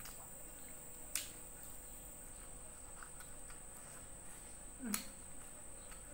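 Eating with the mouth close to the microphone: two sharp wet mouth smacks while chewing fried fish, about a second in and about five seconds in. A steady high-pitched whine runs underneath.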